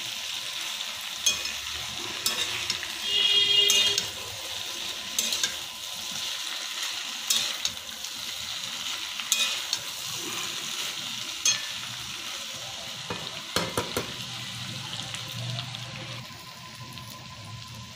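Potato, cauliflower and soya chunks sizzling in hot oil in a frying pan as a spatula stirs them together, scraping and knocking against the pan every second or two. A brief high squeak about three seconds in.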